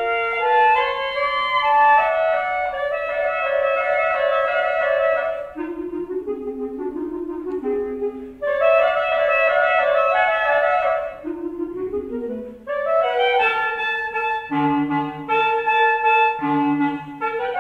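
Two clarinets playing a classical duet. One holds long upper notes while the other moves in phrases below it. Near the end the lower clarinet plays short detached notes against the sustained upper line.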